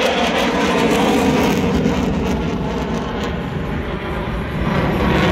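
F-35 Lightning II fighter jet passing overhead: the steady rushing noise of its single Pratt & Whitney F135 turbofan, with a deep rumble underneath. It dips slightly about four seconds in and swells again near the end.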